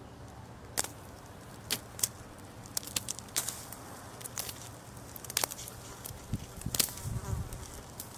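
Balloons popping one after another: a string of sharp pops at uneven intervals, about a dozen in all.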